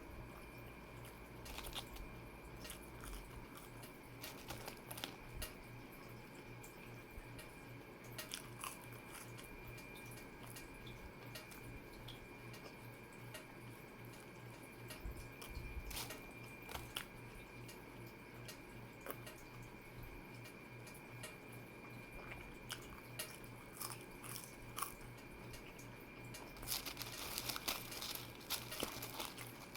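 A person eating close to the microphone: faint, scattered clicks of chewing and biting, busier near the end, over a steady electrical hum.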